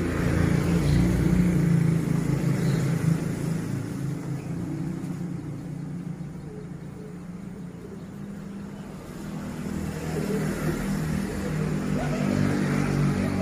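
A motor vehicle engine running close by, louder near the start, fading in the middle and growing louder again near the end.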